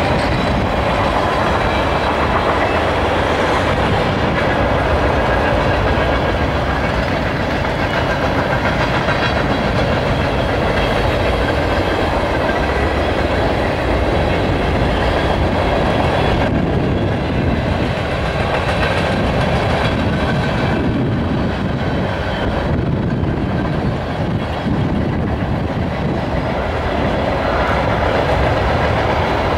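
Freight cars of a CSX manifest train rolling past: a loud, steady noise of steel wheels running on the rails.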